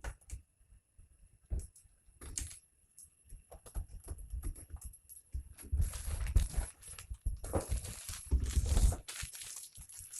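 Hands handling and refitting the metal outer cover of an SMD rework station: irregular clicks, knocks and rustling, busiest and loudest in the second half.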